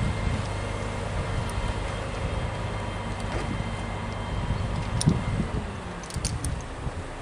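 Steady low hum of an idling engine, with a few sharp metallic clinks of the crane's lifting chain and hook about five and six seconds in.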